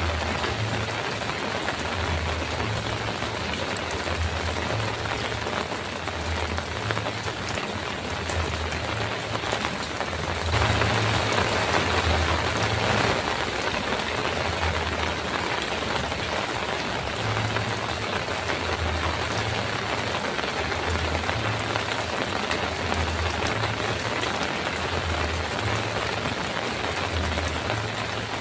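Heavy rain pattering steadily on a metal roof, with a low rumble that comes and goes. The downpour swells louder for a few seconds about ten seconds in.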